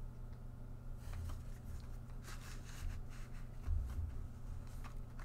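Faint rustling, sliding and soft taps of a cardboard card package being handled and opened by hand, with a few dull thuds on the desk.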